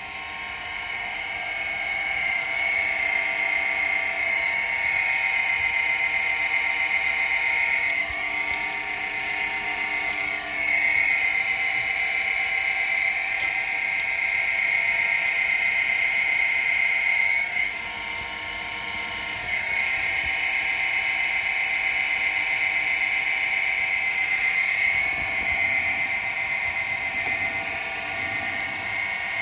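Chevalier Accugrind 618 SP surface grinder running: a steady high machine whine made of several held tones, louder after about ten seconds, dipping briefly near eighteen seconds, then steady again.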